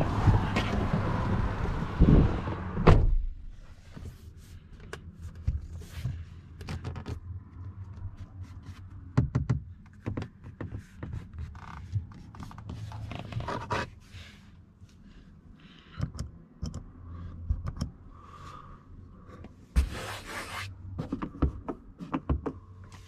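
Rear door of a Jetour X70 SUV shut with a solid thunk about three seconds in, after which the outside wind noise drops away. Then scattered small clicks, knocks and scrapes inside the cabin as the door-panel controls and the roof grab handle are worked.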